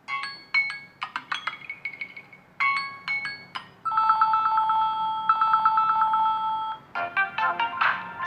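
Samsung Galaxy A03 Core playing ringtone previews one after another. A short chiming melody plays twice, then a steady warbling two-note trill starts about four seconds in, then a quicker, different melody near the end.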